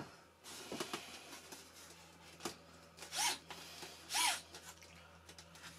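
Hands handling the foam tail of a radio-controlled model plane: small clicks, then two short rasping scrapes about three and four seconds in.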